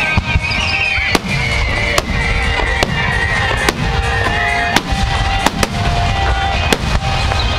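Aerial firework shells bursting overhead in quick succession, a sharp bang roughly every second over a continuous low rumble from the barrage.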